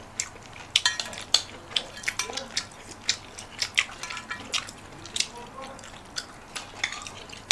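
Cutlery clinking and scraping against dishes while eating: an irregular series of sharp clicks, a couple of them ringing briefly about a second in.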